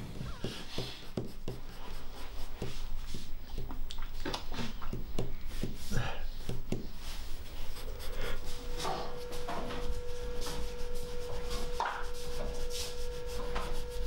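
Pencil scratching on paper in many quick, short sketching strokes. About eight seconds in, a steady tone sets in and holds beneath the strokes.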